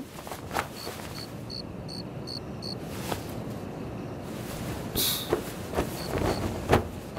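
Crickets chirping in short, evenly spaced pulses, about two or three a second, against a steady background hiss. Soft knocks and a brief cloth rustle about five seconds in come from a quilt being handled and spread on the floor.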